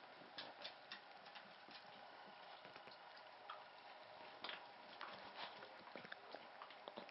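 Faint, irregular wet clicks and smacks of a mother dog licking her puppy, coming more often in the second half.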